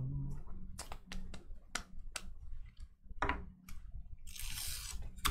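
Trading cards being handled and flipped through by hand: a string of small, sharp clicks and snaps, with a short rustle about four seconds in.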